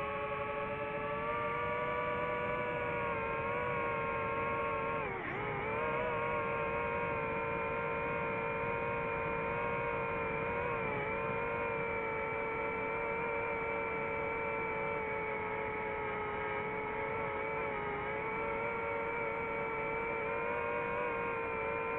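DJI FPV drone's motors and propellers whining steadily, heard from the drone itself. The pitch drops sharply about five seconds in as the throttle eases, then climbs straight back, with a smaller dip a few seconds later.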